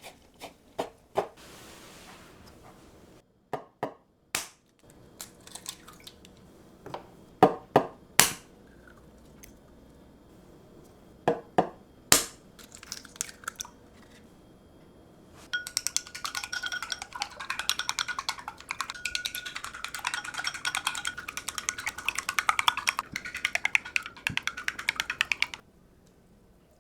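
Kitchen utensils knocking and clinking against dishes, a dozen or so separate hits. Then about ten seconds of very fast, continuous strikes against a ringing bowl, which stop suddenly.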